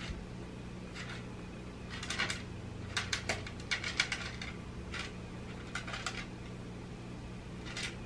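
Cats eating dry kibble from a plastic tray: scattered clusters of short, sharp crunching clicks and rattles, over a faint low steady hum.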